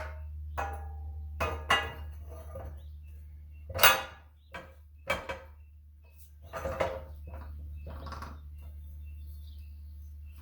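Steel pipe and the parts of a Greenlee pipe bender clanking as the pipe is set into the bender: a run of separate metallic knocks and clinks, the loudest about four seconds in, over a steady low hum.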